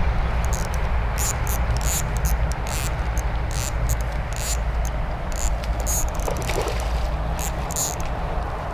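Water movement: a steady low rumble with irregular short splashes or sloshes.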